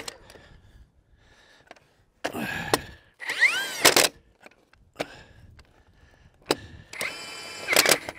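Ingersoll Rand electric 1-inch impact wrench driving track roller bolts in two short runs. In the first, about two seconds in, the motor whines up in pitch and winds back down. In the second, near the end, it runs at a steady pitch for about a second.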